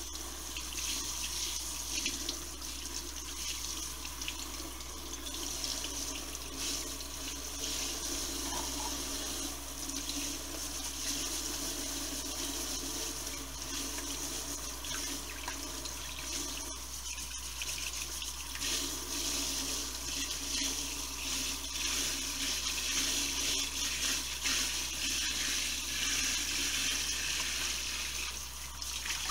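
Steady stream of water from a pull-down kitchen faucet running into a stainless steel sink, splashing over a butternut squash as it is washed by hand.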